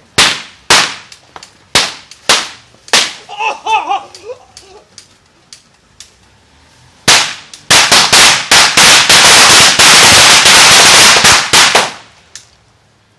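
Prop guns firing blanks in a staged execution. First come single shots and short volleys, with a brief shout about four seconds in. Then comes about four seconds of rapid, continuous fire from several guns at once, which cuts off suddenly near the end.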